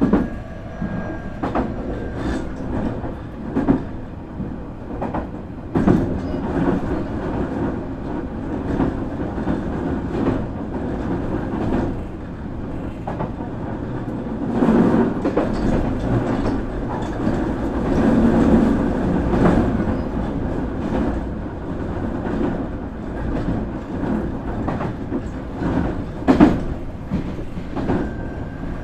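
Nankai 8300 series electric train running, heard from inside the car: a steady rumble of wheels on rail with irregular sharp clacks over rail joints.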